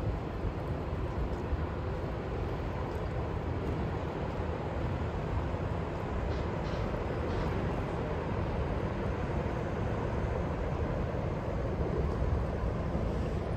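A steady low rumble with a hiss over it, even throughout, with no horn blast.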